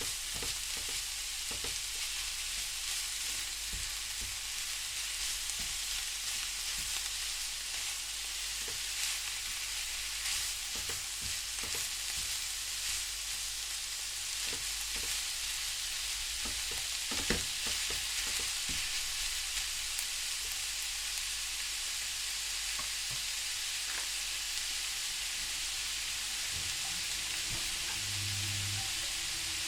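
Beef fry sizzling steadily in a frying pan while it is stirred, with scattered clicks and scrapes of the spatula against the pan.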